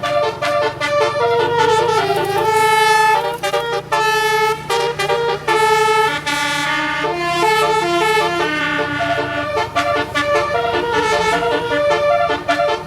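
Multi-tone telolet horn of an Alfarizi bus playing a melody: a run of short and held horn notes stepping up and down in pitch, over a steady low rumble.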